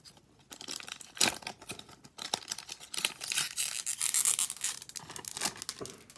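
A hockey card pack's plastic wrapper being torn open and crinkled, a dense crackling that is loudest about three to five seconds in.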